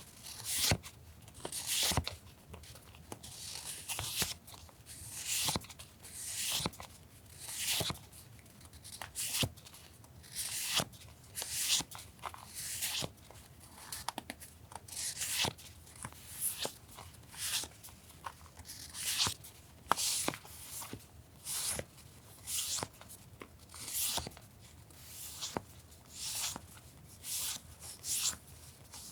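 Paper stationery and its plastic packaging being handled: a run of short rustling, crinkling swishes, about one a second, with small clicks and taps between them.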